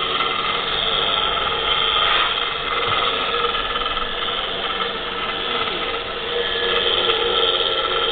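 ENCO 12-inch disc sander's electric motor and disc running freely with no work on it: a steady hum with a few held tones. It runs smoothly, in what the seller calls very good running condition.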